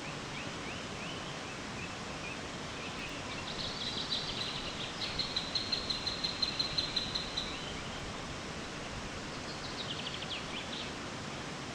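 Steady rush of Lower Catawba Falls, water cascading about 100 feet down rocks. A songbird sings a long run of quick high notes a few seconds in, and a shorter run near the end.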